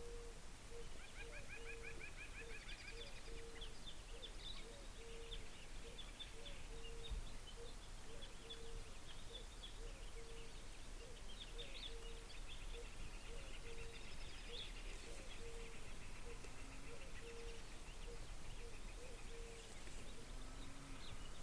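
Wild birds calling outdoors: songbirds chirp and trill steadily, over a repeated series of short low notes about twice a second.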